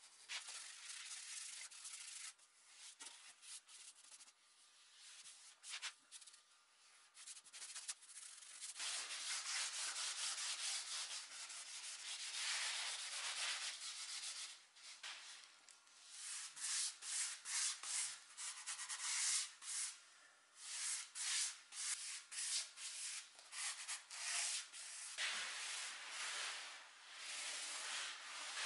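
A brush and then a rag rubbing over an oak desktop as dark wood stain is brushed on and wiped in, in quick back-and-forth strokes. Near the end a small paint roller rolls acrylic varnish over the stained wood.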